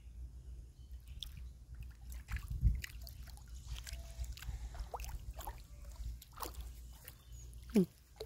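A toddler's feet splashing and sloshing irregularly in shallow river water over a low steady rumble, with a thump about two and a half seconds in and a short, loud falling sound near the end.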